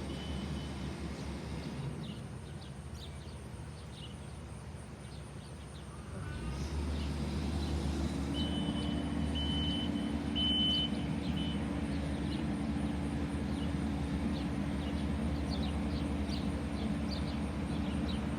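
A heavy machine's engine drones steadily. It grows louder about six seconds in and then holds with a steady hum. Short high beeps and chirps sound faintly over it.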